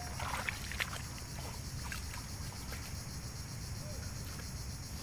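Shallow water sloshing softly around boots and hands as people wade and reach into it, with a few faint knocks in the first two seconds over a steady low rumble.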